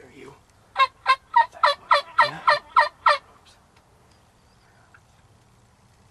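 Turkey yelping: a run of nine loud, evenly spaced yelps over about two and a half seconds, then it stops.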